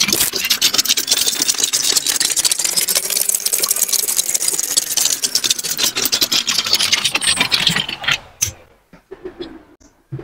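Plastic spirograph gear wheels rolling around toothed rings with pens pressed in their holes: a rapid, steady clatter of gear teeth clicking and pen tips scratching on paper. It drops away about eight seconds in, leaving a few scattered clicks.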